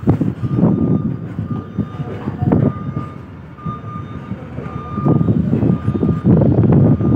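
Reversing alarm of a diesel reach stacker beeping repeatedly at one steady pitch, over the rumble of its engine.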